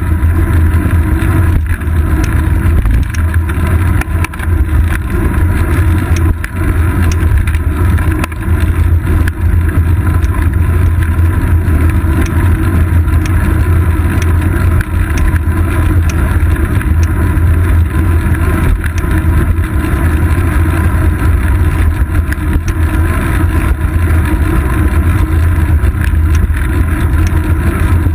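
Steady low rumble of wind buffeting and road vibration picked up by a seat-post-mounted GoPro Hero 2 on a moving road bike.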